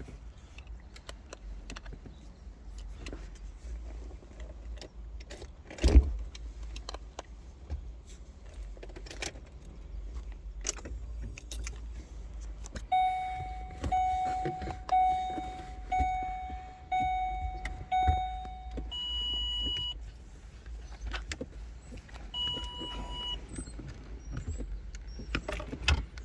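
Keys jangling and clicking in a car's ignition, with a sharp thump about six seconds in. Then an electronic chime sounds six times, about once a second, followed by two separate higher beeps.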